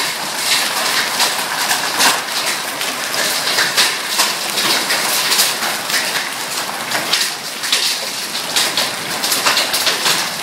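Hailstorm: hailstones and rain pelting down on hard surfaces in a loud, continuous dense clatter of many small impacts.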